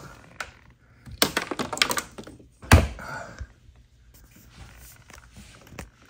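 A burst of quick clicks and rattles, then one heavy thunk about three seconds in: hand-handling knocks against the Sea-Doo's plastic body panels.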